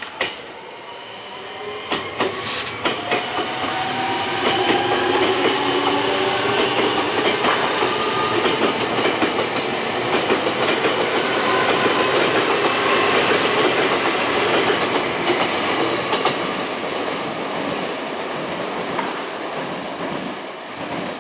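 Semboku Rapid Railway 5000 series electric train accelerating away from a station and passing close by: its VVVF inverter whine climbs in pitch in several tones at once, with the wheels clicking over rail joints. The sound fades as the last cars go by.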